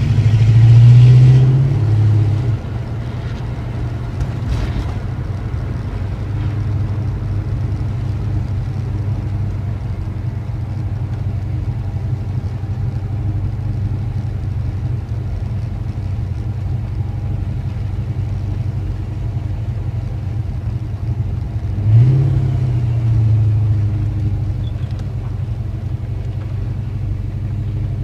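1988 Ford Mustang GT's 5.0 V8 under way: it accelerates briefly at the start and again near the end, with a steady low rumble while cruising in between. The engine still has a slight misfire, which the owner puts down to moisture and corrosion in the distributor.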